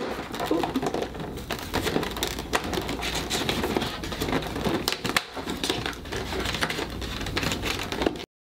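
Fingers picking at and tearing open a perforated cardboard advent-calendar door, a dense run of irregular crackling, scraping and tearing of thin card, with a small paper-wrapped item pulled out of the compartment. It cuts off suddenly near the end.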